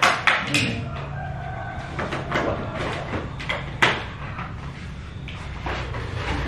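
Handheld stapler snapping shut on paper food boxes, a few sharp clicks spread out with the loudest almost four seconds in, over a low steady hum.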